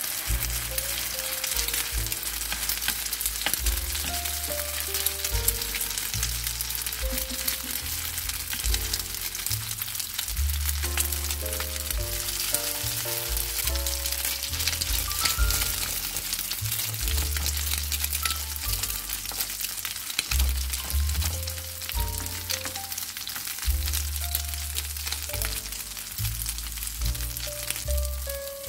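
Grated potato patties sizzling and crackling in hot olive oil in a frying pan, over background music with a steady bass line.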